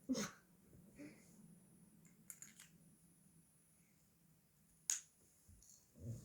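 A few sparse, sharp clicks from handling a small pen and paper: one at the start, a little cluster about two and a half seconds in, and a sharper click near five seconds, over a faint steady hum.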